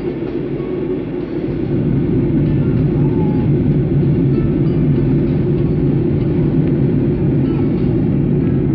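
Steady roar of a Boeing 737-800's cabin heard from a window seat behind the wing: engine and airflow noise during descent, a dense low rumble that grows a little louder about a second and a half in.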